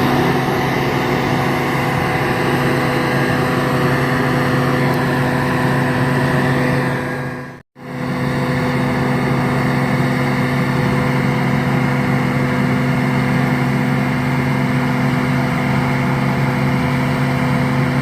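Heavy farm diesel engine running at a steady, even speed under load. It breaks off for an instant about eight seconds in, then carries on unchanged.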